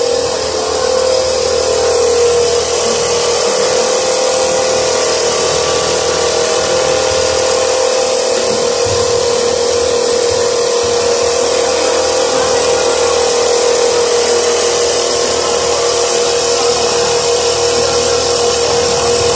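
Automatic filter-bag tubing and sewing line running, its industrial sewing head stitching the filter tube: a steady mechanical whir with a constant whine.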